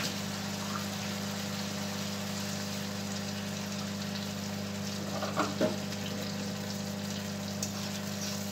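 Water poured into a hot wok of frying onion, tomato and pepper, over a steady low hum. A couple of short knocks come about five and a half seconds in.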